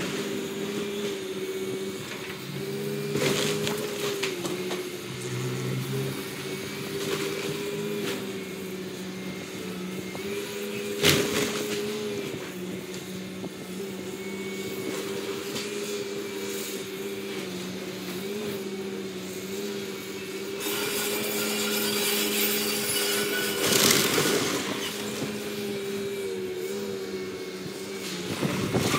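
A demolition excavator's diesel engine running steadily under load while it tears at a wood-frame building. Cracks and crashes of breaking wood and debris come about 3 seconds in, loudest about 11 seconds in, and again as a longer clatter around 21 to 24 seconds.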